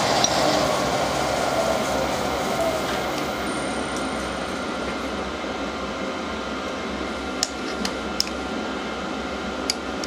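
Metalworking machine tool running, its tone slowly falling and its level dropping as it winds down. A few light metallic clicks come near the end.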